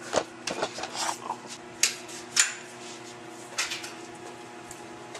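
Footsteps on a hard hallway floor: a handful of sharp, uneven clacks, thicker in the first half and sparser after, over a faint steady hum.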